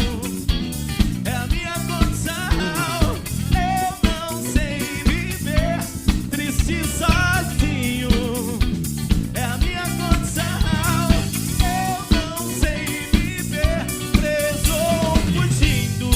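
Pop-rock band playing: drum kit keeping a steady beat with regular snare hits, electric guitar and bass guitar, and a melody line carried over the top.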